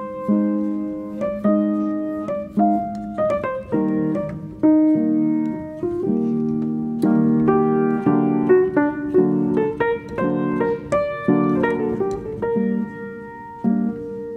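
Piano music: a steady run of chords and single notes, each struck and left to fade.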